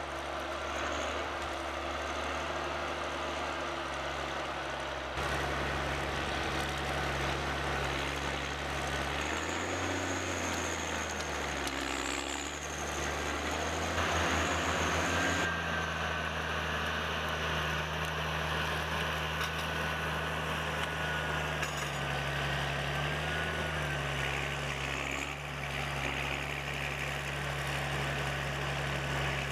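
A machine's engine running steadily at a low, even pace, with a thin high whine over it for part of the time; the sound changes abruptly twice, about five seconds in and about halfway through.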